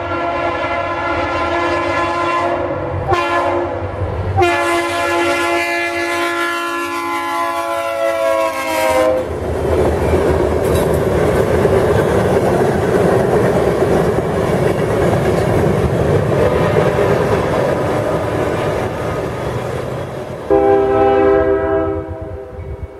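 Horn of a GE ES40DC freight locomotive sounding a long multi-note chord, broken twice briefly, its pitch dropping as the locomotive passes. Then the steady rumble of locomotives and freight cars on the rails. Near the end another horn chord starts suddenly.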